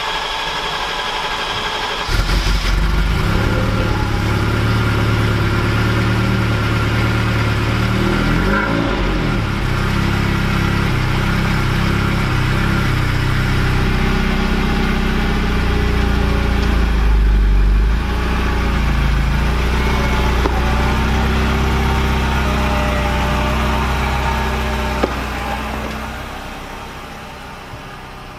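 Cold start of a 1985 Ferrari 308 GTSi Quattrovalvole's flat-plane-crank V8: the starter cranks briefly, the engine catches about two seconds in, then runs at a fast, uneven cold idle with the revs rising and falling. It fades near the end.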